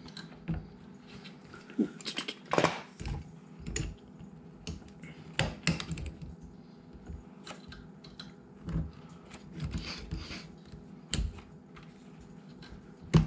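Irregular light clicks, taps and rustles of hands handling wiring and plastic parts on a dishwasher during repair, over a faint steady hum.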